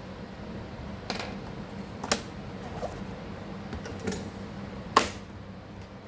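A handful of sharp, separate clicks and taps of small hard parts being handled on a laptop, the loudest about five seconds in, over a steady low hum.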